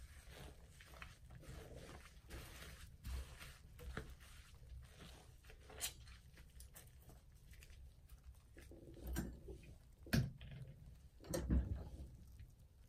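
Soapy sponge being squeezed and worked in thick lather: soft wet squishing and the fine crackle of foam bubbles, with two louder squelches near the end.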